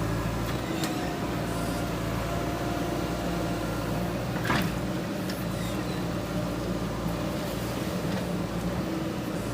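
JCB 3DX backhoe loader's diesel engine running steadily, with one sharp knock about four and a half seconds in.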